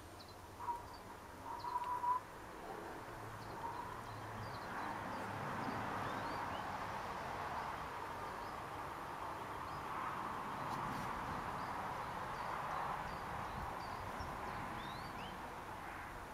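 Garden birds chirping and calling, with a few clearer whistled notes in the first two seconds and faint high chirps throughout. Under them a steady rushing hiss swells a few seconds in, holds, and fades towards the end.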